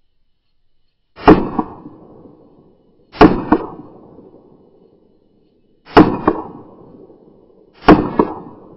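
Four loud handgun shots from a semi-automatic pistol, spaced about two to three seconds apart, each followed about a third of a second later by a fainter crack and a short ringing tail.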